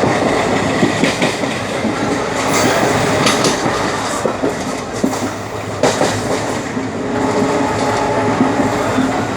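A moving train: steady running noise with the clatter of wheels over the rails and scattered sharp knocks and rattles.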